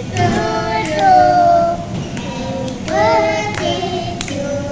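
Voices singing together, with several sharp hand claps spread through; a toddler claps along.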